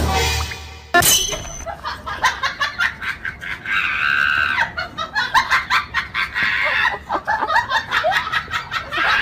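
People's voices laughing and shrieking in quick, excited bursts, with a harsher scream-like stretch about four seconds in.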